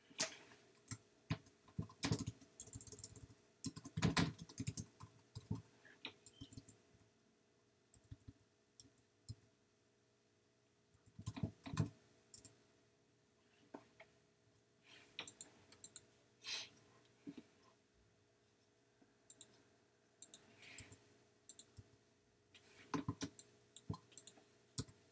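Computer mouse and keyboard clicks, sharp and irregular, coming in clusters with a pause of a few seconds about a third of the way in, over a faint steady hum.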